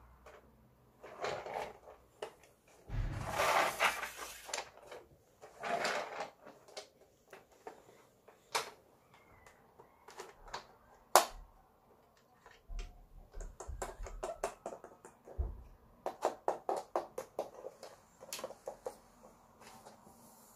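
Hard plastic toys being handled: a Peppa Pig toy airplane and small plastic figures clicking and knocking together, with a longer rustling scrape about three seconds in and again at six seconds, and a quick run of clicks near the end.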